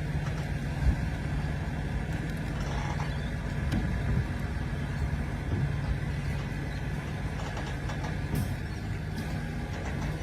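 An engine running steadily with a low drone and rumble, and a single sharp knock about a second in.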